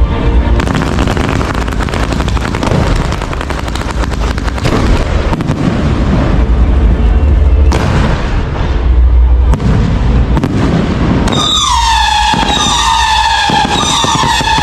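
Aerial fireworks barrage: dense crackling and booming shell bursts. About 11 seconds in, a shrill, wavering whistle of whistling fireworks starts and continues.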